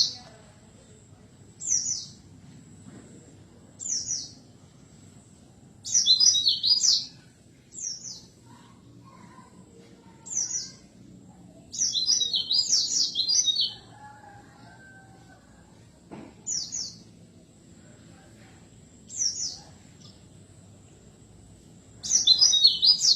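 A songbird calling: short high notes sliding downward every two seconds or so, broken three times by a burst of rapid chattering song lasting about a second.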